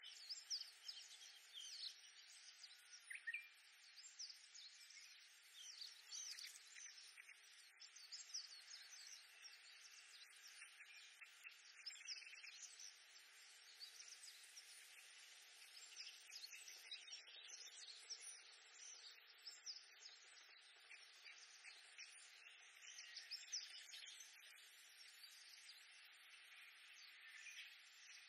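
Oriental reed warblers singing in a dense, continuous chorus of many short, quick chattering notes, over a faint steady background hiss.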